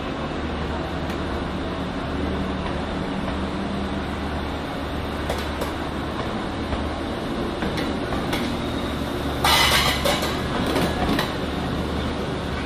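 City-centre street traffic: a steady low engine hum from large vehicles under a general wash of traffic noise, with a short loud burst of hiss about nine and a half seconds in.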